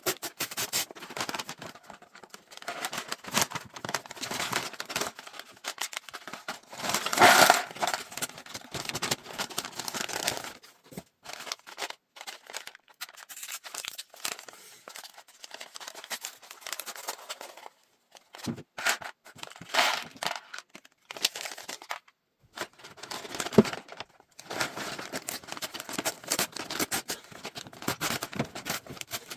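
LEGO set packaging being torn open and crinkled by hand, in irregular rustling bursts with a few abrupt silent breaks; the loudest tear comes about seven seconds in.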